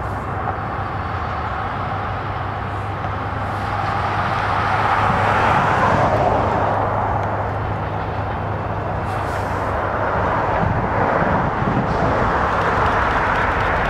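Diesel freight locomotive of an approaching Norfolk Southern train: a steady low engine drone under a broad rushing noise that swells about five seconds in and again near the end.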